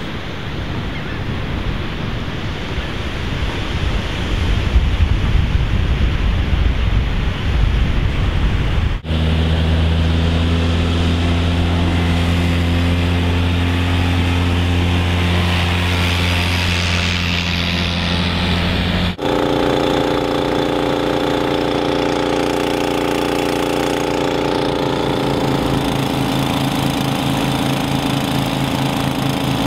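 Wind and surf noise for about the first nine seconds. After an abrupt cut, a utility vehicle's engine runs with a steady low hum. After a second cut about ten seconds later, a different engine runs steadily with its own even tone.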